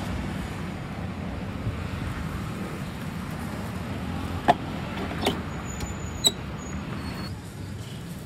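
Steady low rumble of street-stall and traffic background. Around the middle come three sharp metallic clanks about a second apart, from the cast-iron waffle irons being handled; the last one rings briefly.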